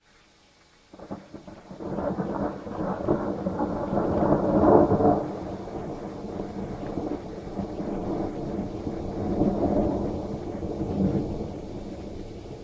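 A long roll of thunder: it starts about a second in, builds to its loudest around five seconds in, swells again a little later and slowly dies away.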